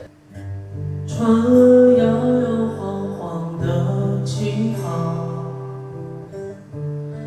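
A man singing a song in Chinese, accompanying himself on acoustic guitar; the voice and guitar come in after a short pause at the start.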